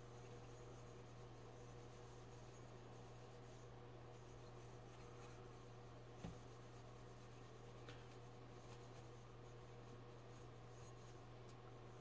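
Faint scratchy rubbing of a scrub sponge against a silver-plated goblet as it scrubs off tarnish, over a steady low hum, with one soft knock about six seconds in.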